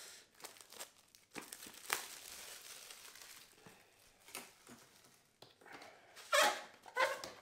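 Plastic shrink-wrap on a small cardboard box crinkling and tearing as it is slit with a knife and pulled off, in irregular crackling rustles. The loudest rustles of packaging come near the end as the box is pulled open.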